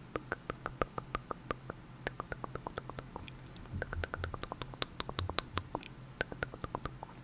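ASMR mouth sounds: short tongue-and-lip clicks made right against a clip-on microphone, about four a second, coming quicker in the middle.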